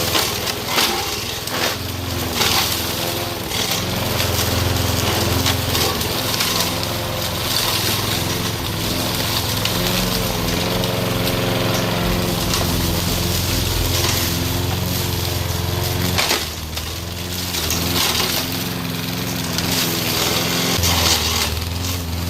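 Mower engine running under load as its chopping blade mulches pine branches, with repeated cracking and snapping of wood. The engine note sags and recovers as the branches bog it down.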